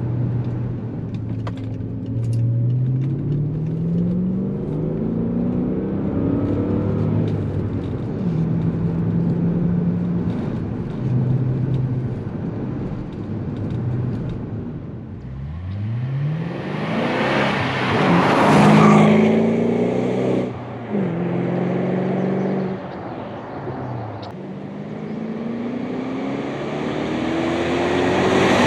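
BMW 545i's 4.4-litre V8 running through a budget aftermarket muffler while the car accelerates. The engine note climbs and drops back at each gear change. The hardest pull comes about halfway through and is the loudest part, and another climb builds near the end.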